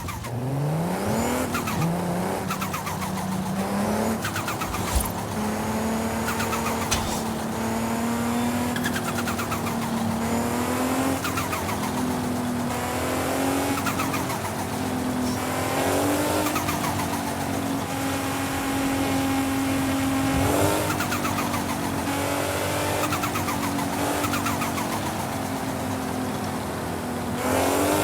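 Big turbocharger fluttering. Its whine drifts slowly up and down in pitch, with repeated falling chirps throughout.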